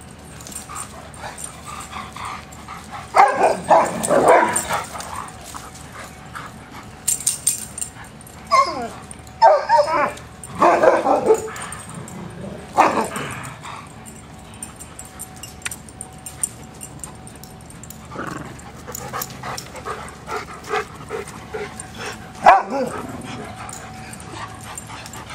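Dogs at play, barking and yipping in several loud bursts, about three seconds in, again from about eight to thirteen seconds, and once more near the end.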